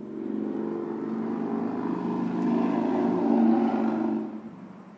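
Motorcycle engine passing by, growing louder to a peak about three and a half seconds in, then falling away quickly just after four seconds.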